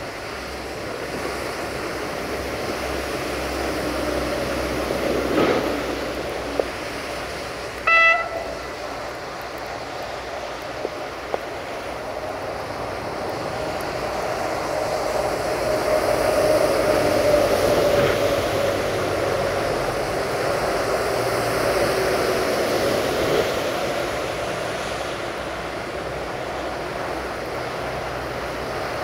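Siemens Desiro VT642 diesel multiple unit rolling slowly toward the listener with its engine running, getting louder toward the middle. A single short toot of a train horn sounds about eight seconds in.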